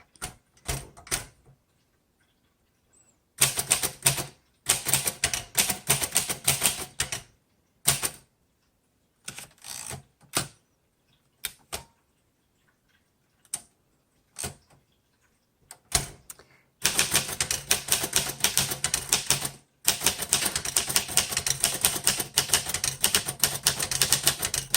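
A 1936 Royal Model O portable typewriter being typed on, its type bars striking the paper with sharp clacks. The first half has scattered single keystrokes and short quick runs. From about two-thirds of the way in comes fast, steady typing with one brief pause.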